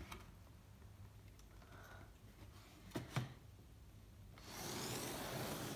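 Quiet handling of a cardboard shoebox on a table: a few soft knocks, then about a second of scraping rustle near the end.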